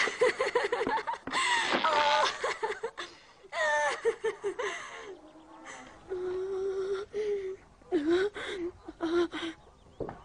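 A girl's voice laughing with joy in short bouts, then drawn-out held vocal sounds in the second half.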